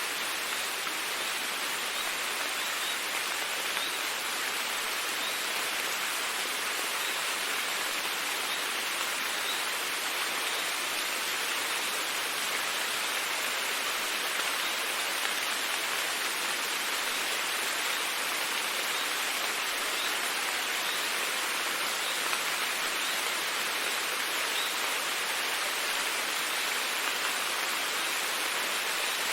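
Steady rainfall: an even hiss with faint scattered drop ticks, holding level throughout and with no thunder.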